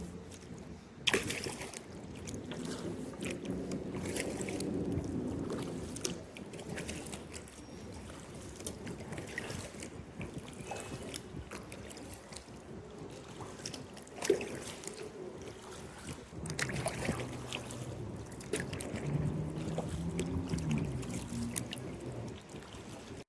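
Kayak paddling: the paddle blades dip and splash, and water trickles and drips off them, with two sharp knocks, about a second in and about fourteen seconds in. A low hum rises and fades twice.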